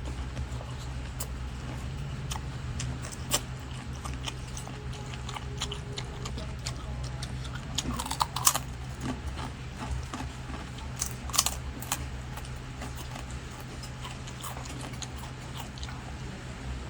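A person chewing food close to the microphone, with small wet mouth clicks and a few sharper clicks, the loudest about eight seconds in. A steady low hum runs underneath.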